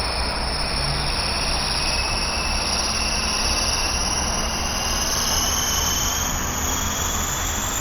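TIG welding arc on stainless steel: a steady hissing buzz with no breaks.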